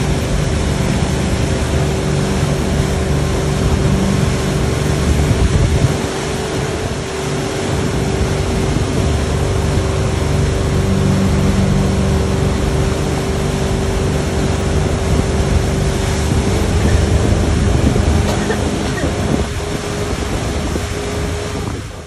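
Motorboat engine running steadily under way with a held hum, mixed with the rush of water from the wake and wind buffeting the microphone.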